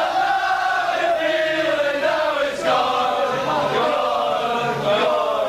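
A crowd of men singing a chant loudly together, with a brief break about two and a half seconds in.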